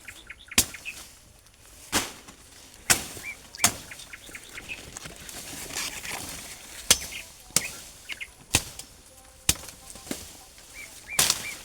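About nine sharp knocks or chops at uneven intervals, roughly one every second, with a few short bird chirps between them.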